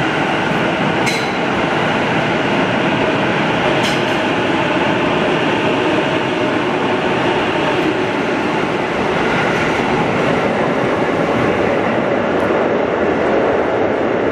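Sotetsu 12000 series electric commuter train pulling out of an underground station platform: a loud, steady rumble of wheels and running gear as the cars roll past. Two brief sharp clicks come about a second and about four seconds in.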